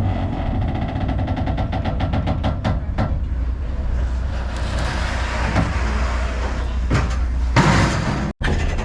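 Ferry engine running with a steady low rumble, under a quick run of metallic clicks or rattles in the first few seconds and a short burst of hiss near the end.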